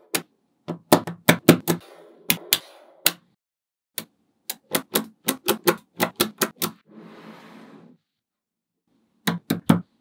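Magnetic balls clicking as blocks of them are snapped onto a magnet-ball wall: quick runs of sharp clicks, a soft rustle about two-thirds of the way through, then a few more clicks near the end.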